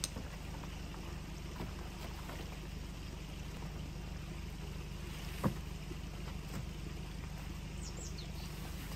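A tent fly and its pole being handled: faint rustling and clicks over a steady low rumble, with one sharp knock about five and a half seconds in.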